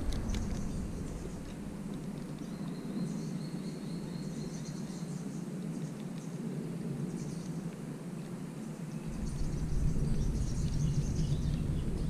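Creek-side outdoor ambience with faint insect and bird calls, including a short thin high tone lasting a few seconds; a low rumble comes in about nine seconds in.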